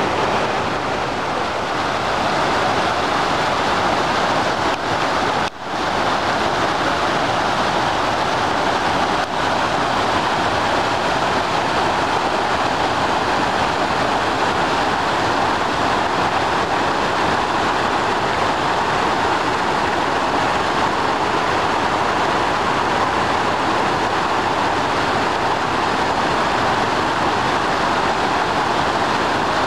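Flash-flooded creek rushing over rock ledges in muddy rapids: a steady, loud, even rush of turbulent water, dipping briefly about five seconds in.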